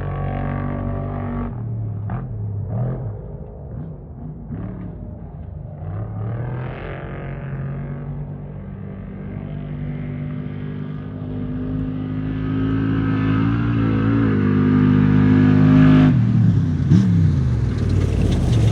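Off-road race vehicle's engine revving and changing pitch as it runs the course, growing steadily louder as it approaches, then passing close about sixteen seconds in with a sudden loud burst and a falling pitch as it goes by.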